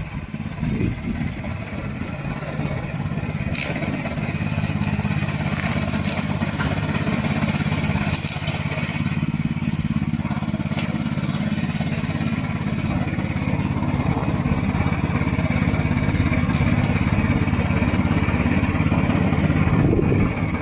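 Combustion engine of a remote-controlled tracked slope mower running steadily, a little louder after about four seconds.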